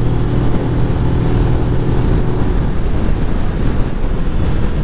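Kawasaki Ninja 400 parallel-twin engine running at a steady note while riding uphill, its higher overtones dropping away about halfway through, with wind noise on the microphone.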